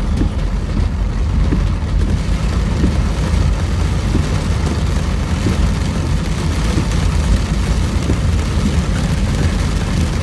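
Car driving in heavy rain: a steady low rumble of engine and road with an even hiss over it.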